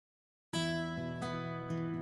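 Silence, then about half a second in, background music starts abruptly: strummed acoustic guitar chords.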